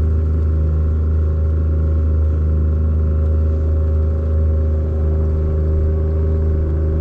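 Boat motor running steadily, a constant low drone with a few steady higher tones over it.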